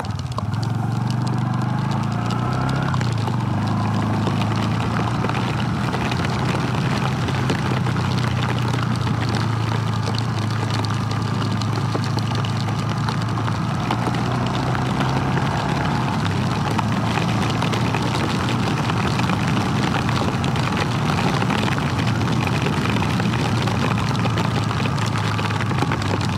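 Honda Super Cub C125's small single-cylinder four-stroke engine running steadily under way, its pitch rising over the first few seconds and then holding, over a steady rush of wind and rain.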